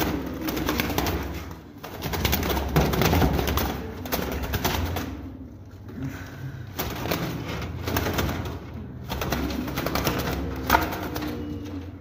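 Pigeons cooing in repeated low bouts of a second or two each, with a crackling rustle alongside.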